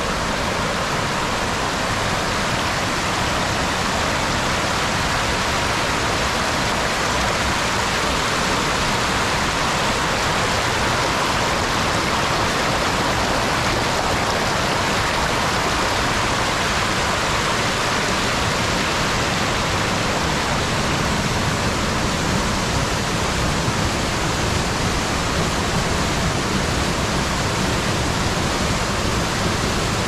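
Steady rushing of flowing water, an even noise with no single impacts.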